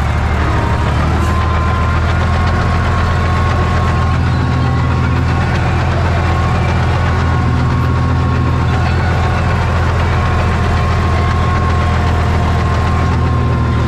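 Ursus C-360 tractor's diesel engine running steadily while pulling a plough, heard from inside the cab, with a thin steady whine above the engine note.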